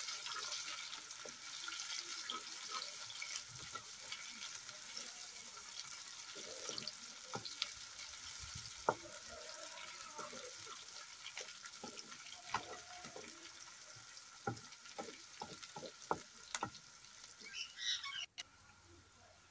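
Sliced onions sizzling in hot oil in a steel kadhai as they are browned, stirred with a wooden spatula that knocks against the pan now and then. The sizzle cuts off suddenly near the end.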